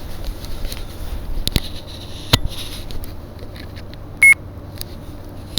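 A few sharp knocks and clicks of the camcorder being handled, then a short, loud electronic beep a little over four seconds in.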